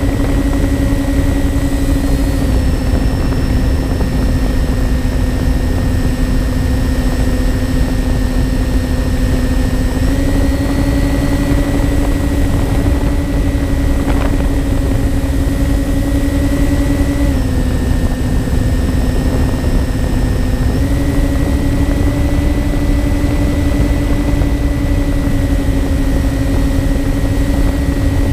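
Twin electric motors and propellers of a MyTwinDream FPV model plane humming steadily in flight, heard from the onboard camera over a low wind rush. The pitch steps down slightly a couple of seconds in, back up about ten seconds in, down again near eighteen seconds and up again around twenty-one seconds.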